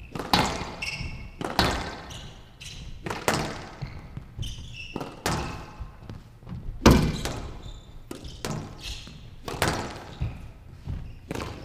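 Squash rally on a glass-walled court: sharp cracks of the ball struck by rackets and hitting the walls, about one a second, the loudest about seven seconds in, with short high squeaks of shoes on the court floor between hits.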